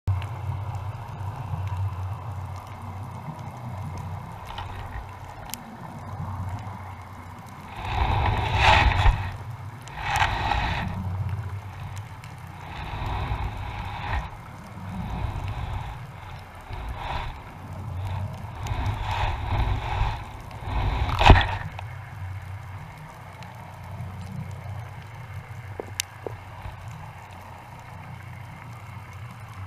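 Muffled underwater noise picked up through a GoPro's waterproof housing: a steady low rumble with several swells of gurgling water noise, and one sharp click about two-thirds of the way through.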